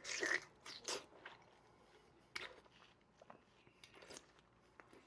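Close-miked biting and chewing of fresh strawberries, with irregular wet crunches that are densest in the first second and sparser after.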